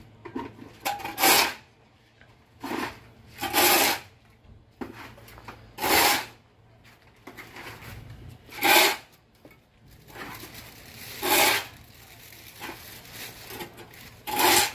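Shovel scraping and scooping through cinder-block mix in a metal trough, a rasping stroke about every two and a half seconds, six times.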